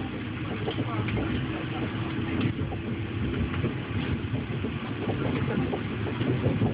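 Steady low running noise of a D-series passenger train heard inside the carriage as it rolls along the track.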